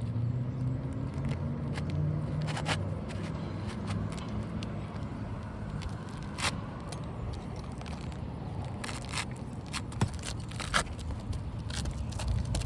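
Asphalt shingle scraping and rustling as it is slid into place on the roof, with scattered sharp clicks, over a low engine hum that is strongest in the first few seconds.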